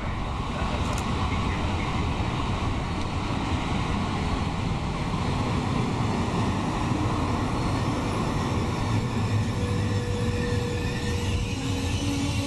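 An E.444R electric locomotive and its coaches passing close by at speed, with a steady rumble of wheels on the rails. Near the end, steady tones come in.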